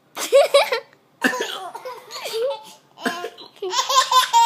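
A person coughing and a baby laughing in reply, in three short bouts. Near the end the baby's laugh rises into a long, high-pitched squeal.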